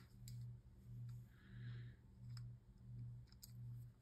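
Faint scattered plastic clicks from a Beyblade launcher being handled to clear its jamming ripcord. Under them runs a low hum that swells and fades about one and a half times a second.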